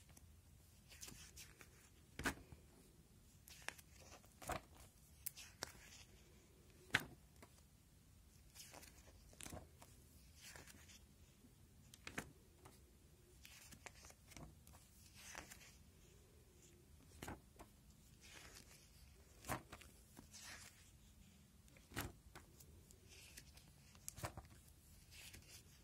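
Clear plastic sleeves of a display folder crinkling and rustling as the pages are turned by hand, with a sharp click or snap every couple of seconds.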